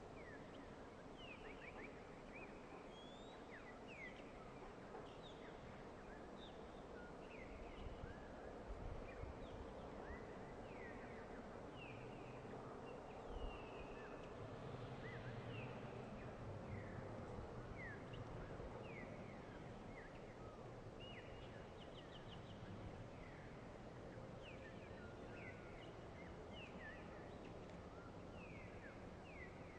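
Birds chirping over a faint low rumble from the train as it moves away along the track. The rumble swells through the middle and then fades.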